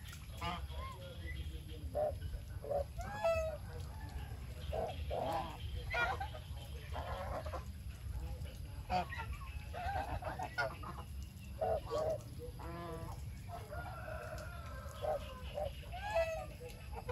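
Flock of domestic geese calling, with short honks and cackles coming often and irregularly from several birds, over a steady low rumble.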